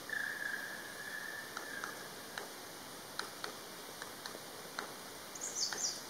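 Black woodpecker giving one long, drawn-out call of about two seconds, followed by scattered faint ticks and a brief high chirping near the end.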